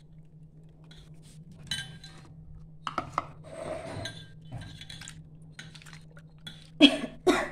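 Soaked tamarind squeezed and mashed by hand in a small steel pot: soft wet squishing with scattered clinks and taps of fingers against the steel, and two louder knocks near the end.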